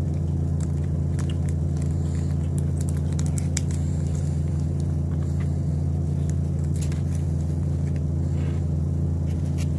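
A steady low hum throughout, with scattered small clicks and crackles of a seasoning packet being handled and its flavoring sprinkled onto food.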